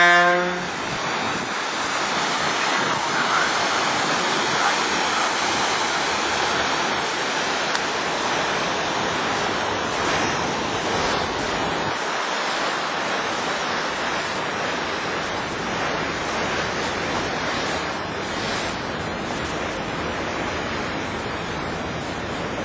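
A paddle steamer's horn cuts off within the first second, leaving a steady rush of churning water from the side-wheel steamer's paddles and wake, mixed with wind on the microphone.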